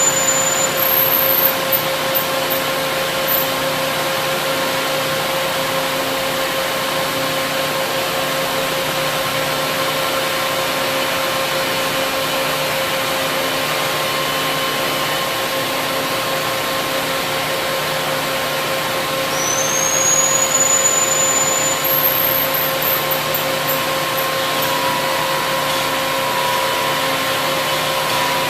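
SNK three-spindle, five-axis CNC gantry profiler running with a steady machine hum and whine. About two-thirds of the way through, a high whine rises in pitch and the level swells briefly.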